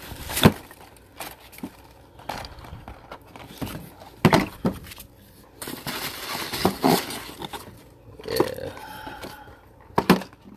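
Lure packaging being handled and opened by hand: irregular knocks, clicks and scrapes of plastic and cardboard with rustling in between.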